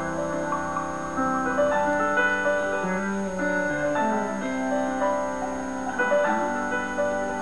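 Local-forecast background music playing through a television speaker: an instrumental of held keyboard chords that shift every second or so.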